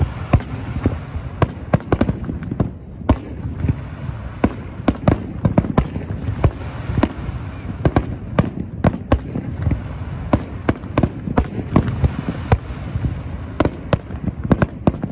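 Aerial fireworks display: shells launching and bursting in a rapid, irregular string of sharp bangs, several a second, over a continuous low rumble.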